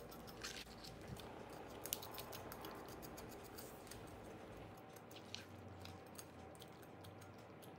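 Faint, scattered scraping and light clicks of a kitchen knife drawn over the flesh of a split mackerel on a plastic cutting board, scraping out leftover blood and membrane.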